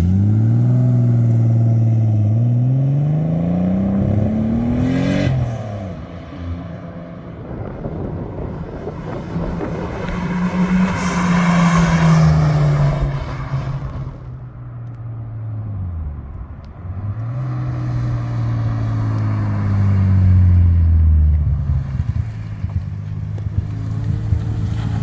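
Turbocharged Toyota Supra accelerating hard, its engine note climbing, then a short sharp blow-off valve vent from an HKS SSQV with a 3D-printed insert as the throttle closes about five seconds in. The car then passes with a rush of noise and accelerates again before lifting off.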